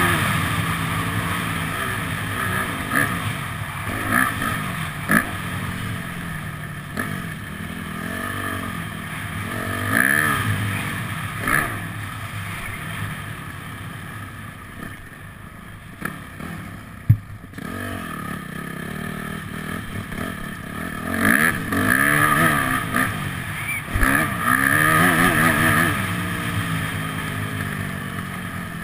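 Motocross bike engine revving up and falling back again and again as the rider works the throttle and gears over the track, with one sharp knock partway through.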